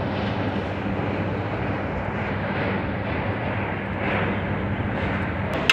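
Bulldozer's diesel engine running steadily with an even drone, and a single sharp knock near the end.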